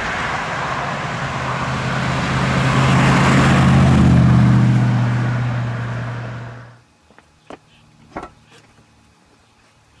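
1959 Chevrolet Impala convertible with a 348 cubic-inch V8 driving past: a steady engine hum and tyre noise build to a peak about four seconds in, then fade and cut off suddenly near seven seconds.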